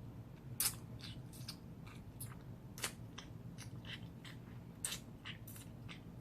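A person chewing a sub sandwich close to the microphone: faint, irregular crackly mouth clicks, with a low steady hum underneath.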